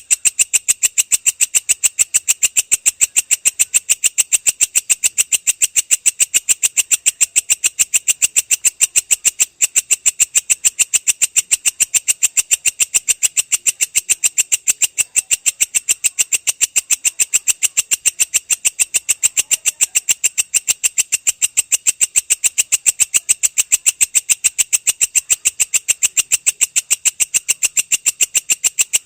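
Belalang kecek, a katydid, calling in a long rapid series: a fast, even train of high, buzzy chirps at about five a second, without a break.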